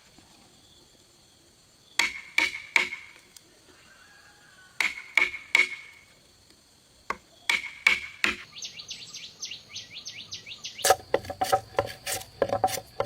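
Bursts of four or five quick hammer strikes on wood, repeated three times a couple of seconds apart, then a fast run of light ticking and, near the end, rough scraping on timber.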